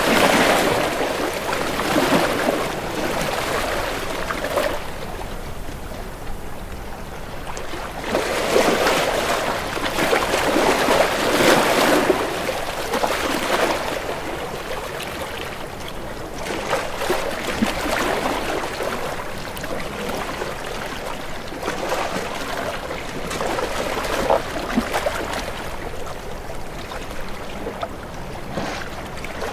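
Water lapping and splashing, swelling and easing in uneven surges every few seconds.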